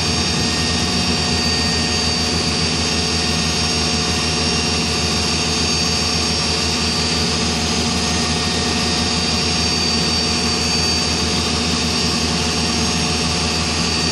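Backhoe's diesel engine running steadily while it holds a suspended load, a constant drone with a high steady whine on top.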